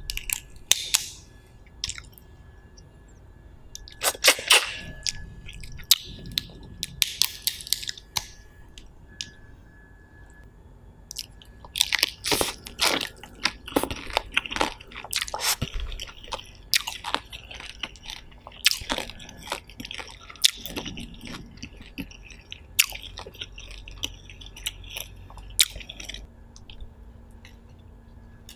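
Close-miked mouth sounds of someone eating steamed prawn, with wet chewing, smacks and crunchy clicks coming in bursts. They are busiest in the middle stretch and thin out near the end.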